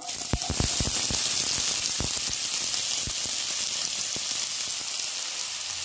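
Chopped onions sizzling as they drop into hot cooking oil in a kadhai: a sudden steady frying hiss. Light clicks and taps come thickest in the first second, then a few more scattered.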